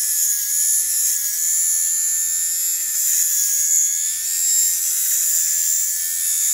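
Small battery-powered rotary facial razor buzzing steadily as it is worked in small circles over the cheek, a high-pitched whine whose pitch wavers slightly.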